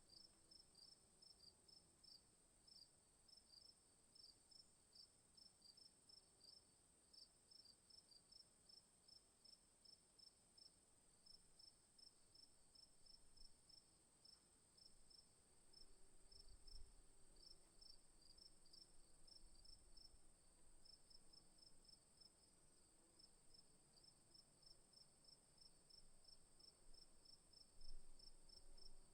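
Faint insect chirping, crickets by the sound of it: short high chirps repeating evenly several times a second over a steady high-pitched whine.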